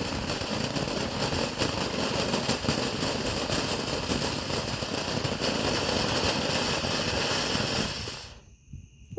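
Consumer firework going off in a dense, steady stream of crackling and hissing, dying away about eight seconds in.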